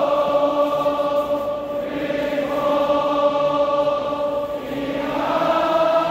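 A stadium crowd of football supporters singing a chant together in long held notes, the tune moving to a new note every couple of seconds.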